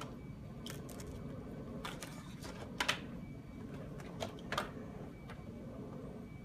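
Light taps and knocks, about six of them spread irregularly, the loudest near three seconds in, from things being handled against a clear plastic tub and a slanted board on a table, over a steady room hum.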